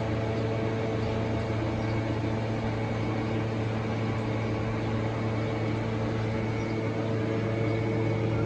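Toyota 1ZZ inline-four engine running steadily at idle, an even hum with a faint high whine on top.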